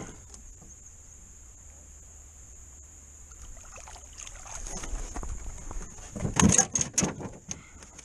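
Knocks and thumps on an aluminium jon boat as a catfish is brought aboard: a low rumble, then a quick cluster of loud knocks about six to seven seconds in. A steady high insect drone runs underneath.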